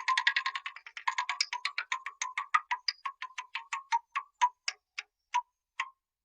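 A sound effect of rapid, sharp ticking clicks that slow steadily from about ten a second to about two a second and stop, like a spinning clicker wheel running down.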